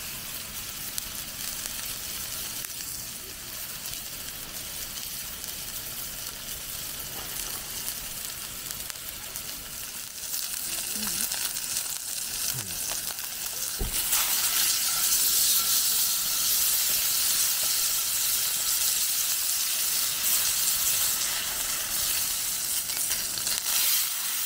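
Beef steak searing in a cast-iron skillet over a wood fire, with a steady sizzle that grows louder about halfway through.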